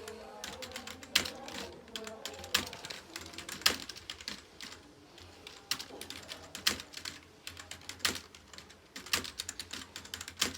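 Computer keyboard being typed on at speed in a typing test: a fast, irregular run of keystrokes with a louder clack about once a second.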